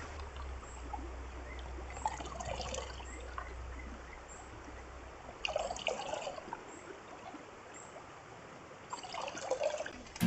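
Mountain stream running and trickling over rocks, a steady rush of water with brief louder babbles about two, five and a half, and nine seconds in.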